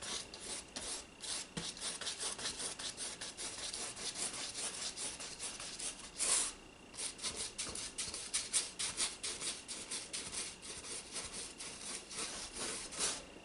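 Flat paintbrush loaded with acrylic paint scrubbing back and forth across a stretched canvas in quick strokes, several a second, with a brief pause a little past halfway.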